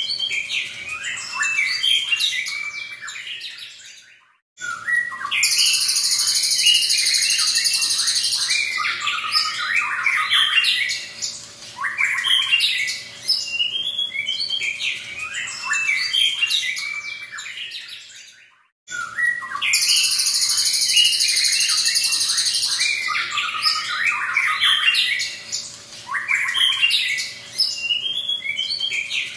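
White-rumped shama singing a loud, rapid, varied song of whistled and chattering notes, twice breaking into a long harsh buzzing phrase several seconds long. The sound cuts out abruptly twice.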